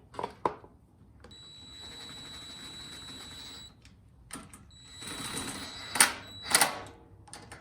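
Parts being fitted during snowblower reassembly: sharp clicks and knocks of plastic and metal pieces, with two steady hissing whirs of about two seconds each.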